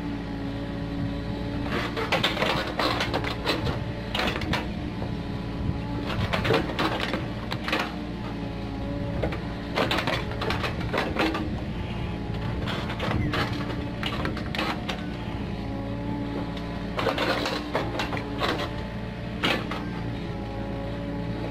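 Komatsu PC45 mini excavator's diesel engine running steadily under hydraulic load, its note rising and falling as the boom and bucket work. Repeated clanks and knocks of the bucket digging into the soil run through it.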